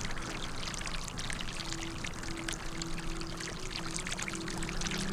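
Water gushing from a pipe into a muddy pool, a steady splashing pour. Soft background music with long held notes runs underneath.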